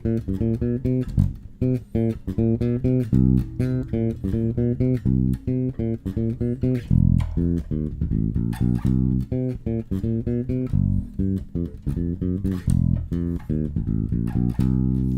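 Electric bass guitar played direct through its onboard preamp with the bass and mid EQ boosted to about two o'clock, the add-on booster not engaged: a busy run of plucked notes ending on one held note. The tone is better but still somewhat muffled.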